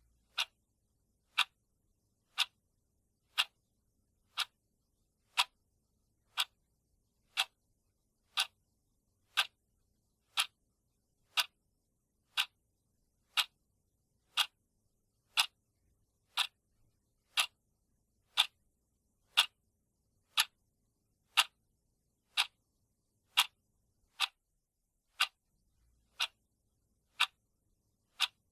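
Countdown timer's clock-tick sound effect: one sharp tick each second, steady and evenly spaced, with near silence between ticks.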